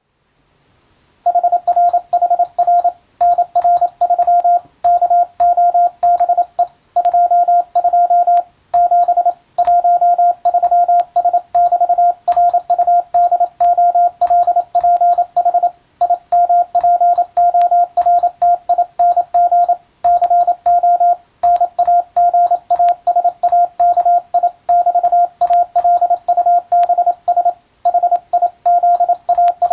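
Morse code sent as a single steady beeping tone, keyed on and off rapidly into dots and dashes, in character groups separated by short gaps. It starts just over a second in.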